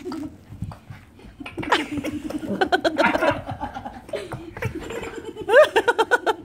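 A person laughing in several bouts, starting about a second and a half in, with the loudest, rising laugh near the end.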